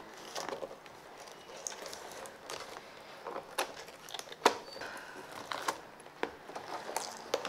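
Scissors snipping at the tape on a cardboard toy package, with crinkling of the packaging and scattered sharp clicks, the loudest snap about four and a half seconds in.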